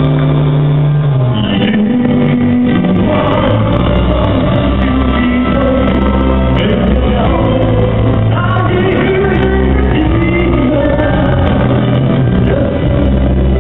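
A man singing into a handheld microphone over a backing track with sustained bass and chord notes.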